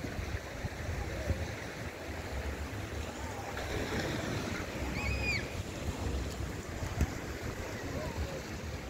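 Waves washing onto a sandy beach, with wind buffeting the microphone in gusty low rumbles. A single brief high chirp about five seconds in.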